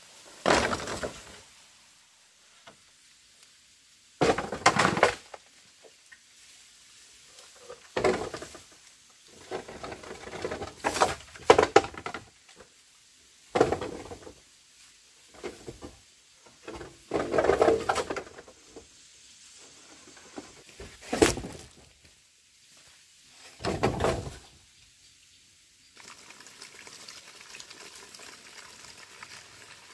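Long green bamboo poles sliding down a dirt bank and clattering onto a pile of poles, a series of hollow wooden clatters a few seconds apart. Near the end, a steady stream of water running from a hose into a plastic basin.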